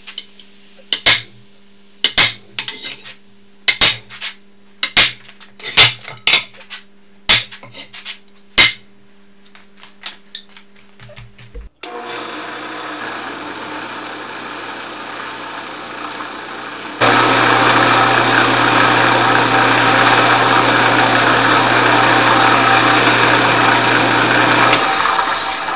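A hammer striking a center punch on a steel plate held in a vise, about a dozen sharp strikes marking hole locations. About halfway through, a Delta Rockwell drill press is switched on and its motor runs steadily. About two thirds in, the twist bit starts drilling into the steel plate, louder, until it winds down near the end.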